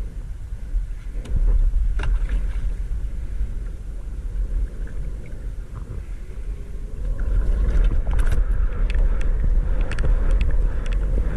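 Wind rumbling heavily on an action camera's microphone as it moves over the water, with scattered splashes that grow busier in the second half.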